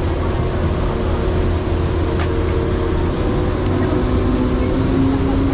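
An engine running steadily, its hum holding a few steady tones, one of which drops in pitch about four and a half seconds in.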